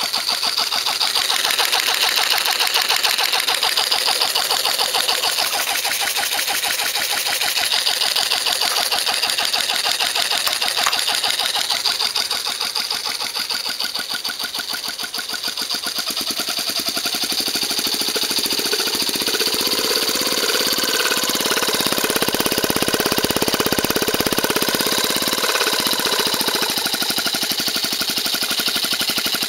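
A Cox .049 model engine converted to run on compressed air, spinning fast on air from a small Bon-Aire compressor with a rapid, even mechanical chatter. Its speed and loudness sag briefly about halfway through, then pick back up.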